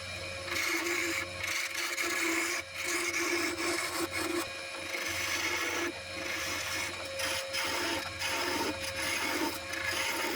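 Wood lathe running with a steady motor hum while a turning tool cuts the spinning wood, a rasping scrape that comes in repeated passes with short breaks.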